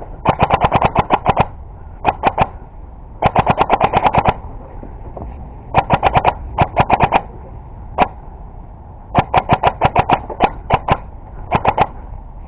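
Airsoft rifle firing rapid automatic bursts of sharp, evenly spaced shots. The bursts come one after another, each up to about a second long, with a single shot about eight seconds in.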